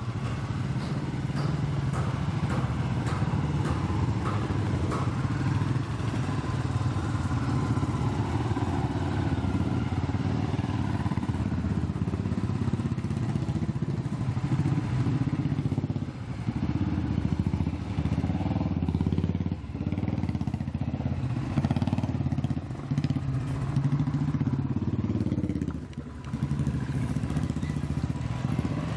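Royal Enfield Bullet's single-cylinder engine running under way, the throttle easing off briefly a few times, at about 16, 19 and 26 seconds in.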